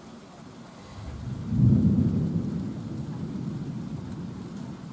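Thunder rumbling over steady rain: the low rumble swells about a second in, peaks, then slowly dies away while the rain hiss carries on.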